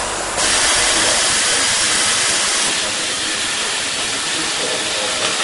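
Steady, loud hiss of machinery noise in a robotic test cell. It steps up about half a second in and eases a little just before halfway.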